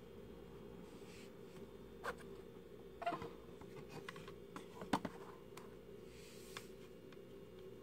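Plastic prism glasses handled and set on a wooden tabletop: a few faint, scattered clicks and taps, the loudest about five seconds in, over a steady low hum.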